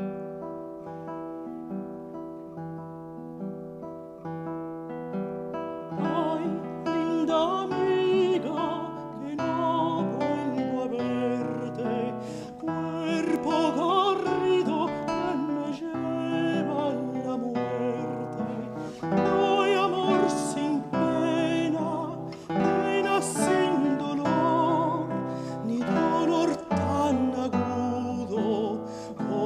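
Classical guitar playing alone. About six seconds in, a countertenor voice comes in, singing a Sephardic song with vibrato over the guitar accompaniment.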